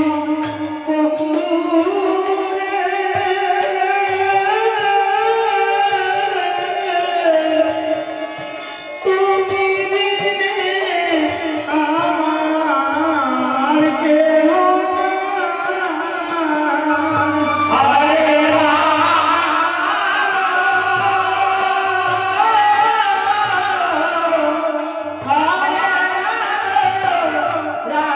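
Bengali devotional kirtan: voices singing a melody over khol drums, violin and harmonium. The drum strokes come in stronger about two-thirds of the way through.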